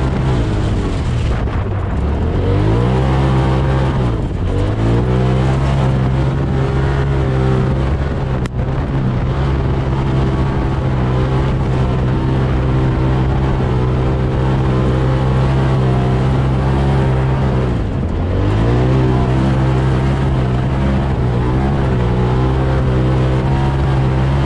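Straight-piped Polaris RZR turbo side-by-side engine running hard under load, holding steady revs. The revs drop and climb back up about two seconds in, again around four seconds, and once more about three quarters of the way through.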